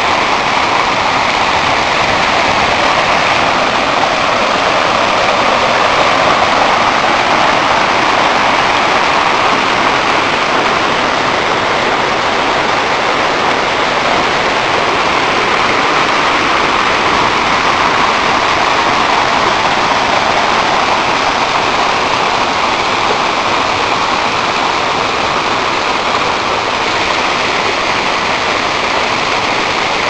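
A waterfall and the stream below it rushing over boulders: a loud, steady rush of water.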